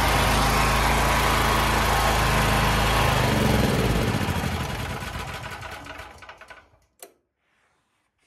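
Small generator engine running steadily, then shut off: it winds down with slowing strokes over about three seconds and stops, followed by a short click.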